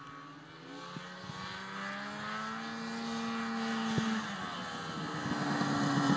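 Ski-Doo snowmobile engine approaching and growing louder, its pitch rising, dropping back about four seconds in, then climbing again near the end.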